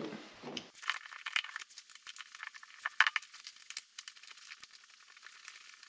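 Faint, scattered clicks and light taps of small parts being handled: an Allen key working a bolt on an auxiliary light's plastic mounting bracket.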